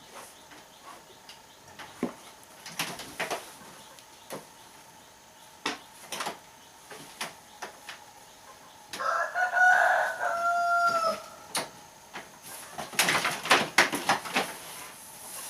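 A rooster crowing once, one long call of about two seconds roughly nine seconds in. Scattered knocks and clicks come before it, and a quick run of knocks follows near the end.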